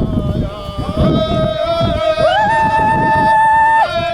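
A voice singing long held notes, sliding up in pitch about halfway through and holding, over a steady sustained tone.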